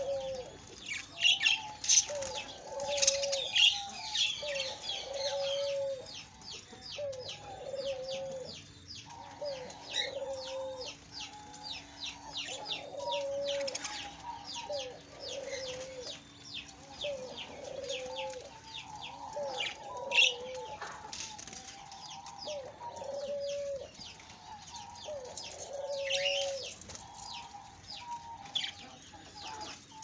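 Budgerigars chattering with fast, high chirps, over a lower call from another bird repeated roughly every second and a half, which stops a few seconds before the end.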